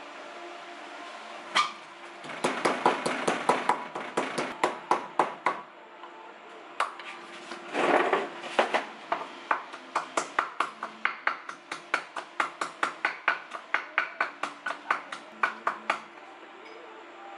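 Wooden pestle pounding garlic and chili in a wooden mortar: quick, repeated knocks, several a second, with a short pause about six seconds in.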